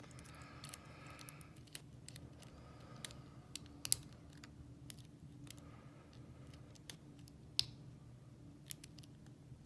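Faint, irregular small metal clicks of a lock pick and tension wrench working the pin tumblers of an old Yale padlock during picking, with sharper clicks a little under four seconds in and again about halfway through the second half; the lock is not yet open. A low steady hum sits underneath.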